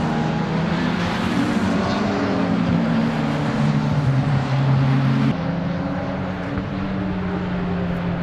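Engines of several Radical open-cockpit sports prototype race cars running at racing speed through a corner, their notes overlapping and shifting in pitch as they pass. The sound changes abruptly about five seconds in to a steadier single engine note.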